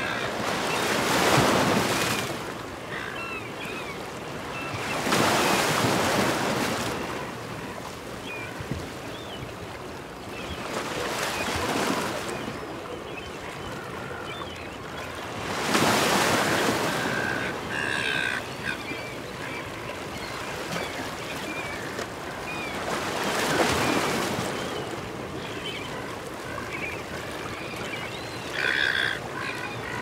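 Small waves washing over a rocky shoreline, the surf swelling and falling back every few seconds. Seagulls give short calls now and then, loudest once about halfway through and once near the end.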